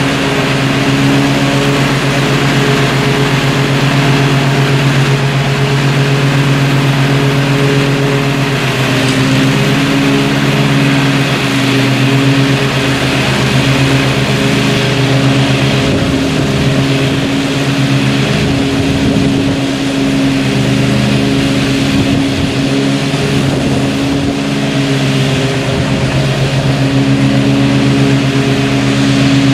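Riding lawn mower's engine running steadily while mowing, its pitch wavering for a few seconds in the middle as the load on it changes.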